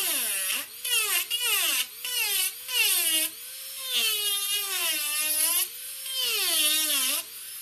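Grobet Marathon micromotor handpiece with a carving bit cutting into a wood block: a high whine that sags and recovers over and over as the bit is pressed hard into the wood, with a rasping hiss from the cut.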